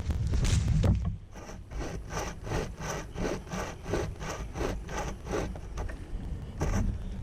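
20-inch pocket chainsaw pulled back and forth by hand through wood, a rapid train of short rasping strokes at about three a second that stops briefly and picks up with one more stroke near the end; the chain is short enough that it binds in the cut and forces short strokes. A brief low rumble comes first.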